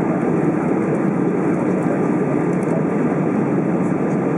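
Steady cabin noise inside an Airbus A320 while it taxis, mostly the even hum of its jet engines at low taxi thrust.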